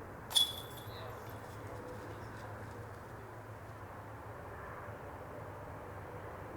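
A disc strikes a metal disc golf basket once, a sharp metallic clash with a brief ringing, about half a second in. After it comes a steady outdoor background with a low hum.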